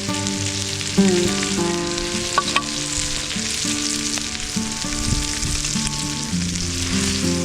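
Breakfast fry-up of sausages and bacon sizzling steadily in a Trangia frying pan. Acoustic guitar music plays underneath.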